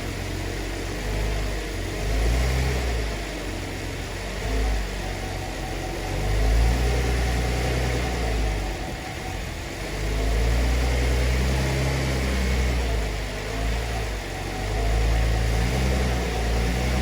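Cadillac CTS engine idling and revving lightly several times against the brakes as the car is shifted between reverse and drive. This is a brake-torque test for a broken motor mount; here the driver's side mount is bad and lets the engine lift.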